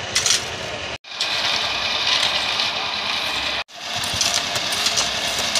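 A machine engine running steadily, with two abrupt breaks in the sound about a second in and again past the midpoint.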